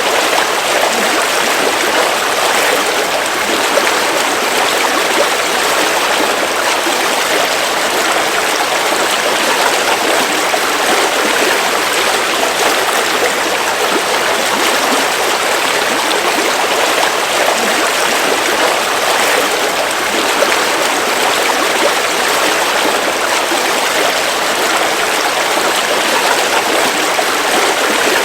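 River water flowing over rocks in a forest stream: a steady, even rushing with some babbling.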